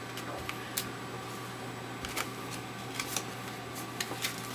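Trading cards being handled and flipped through by hand: a few soft card slides and light taps at irregular intervals, over a steady low hum.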